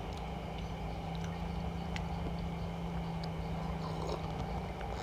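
Steady low hum with a few faint clicks as a drinking glass and a cup are handled.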